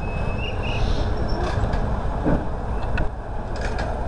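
Small diesel shunting locomotive running close by with a steady low engine rumble, a brief high squeal near the start and a few light clicks and knocks.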